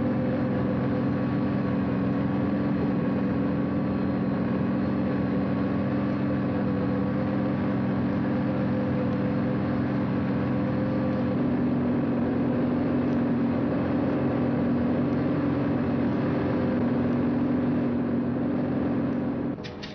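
Helicopter in flight: the engine and rotor run as a steady drone with a few held tones, which shift slightly in pitch about two-thirds of the way through. The drone drops away just before the end.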